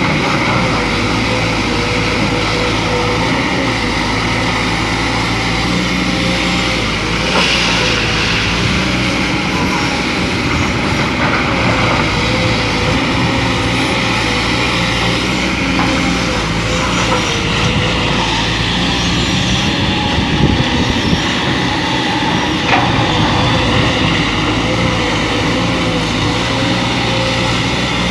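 Excavator's diesel engine running steadily at work, with a wavering whine over it and a few short knocks.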